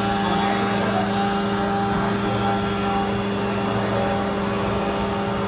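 CNC drilling machine running with a steady, even hum, holding one constant pitch.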